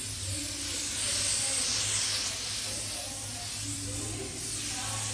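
Steady rushing hiss of air over a low, even electric motor hum, like a small mains-powered blower running continuously.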